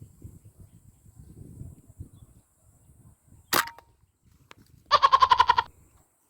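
A single sharp airgun shot a little past halfway, then a short quavering bleat from farm livestock near the end. Faint rustling lies underneath.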